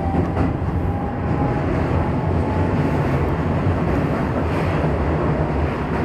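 Keisei 3000 series electric train running, heard from on board: a steady rumble of wheels and running gear. A faint rising motor whine fades out about a second in.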